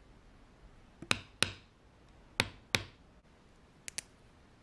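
Two pairs of sharp knocks of small hard objects, each pair a third of a second apart, followed by two faint clicks near the end.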